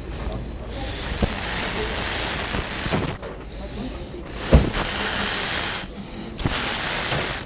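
Mouth-blown atomizer hissing as liquid colouring is sprayed through it in three long blows with short breaths between: the first lasts about two and a half seconds, the next two are shorter. A brief knock comes at the start of the second blow.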